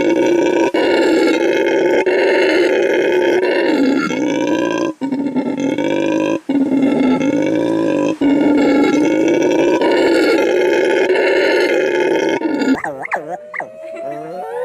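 Howler monkeys roaring: a loud, continuous, deep roar broken only by a few short pauses. Near the end it cuts to a different call of quick pitch glides that swoop up and down.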